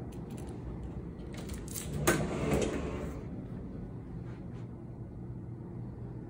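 A closet door being opened: a few light clicks, then a sharp knock about two seconds in followed by about a second of sliding noise, over a low steady hum.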